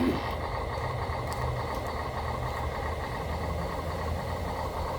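Radio-controlled construction machines running with a steady mechanical hum. A higher whine cuts out a moment in, and a few faint ticks follow.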